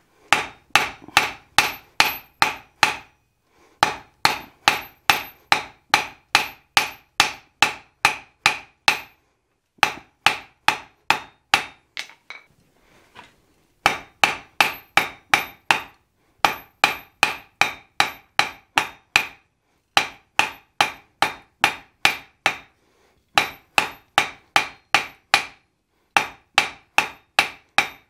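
Blacksmith's hand hammer striking red-hot steel on an anvil, drawing out a tapered hook tail. Quick runs of blows, about three a second, each with a short metallic ring, broken by brief pauses between runs.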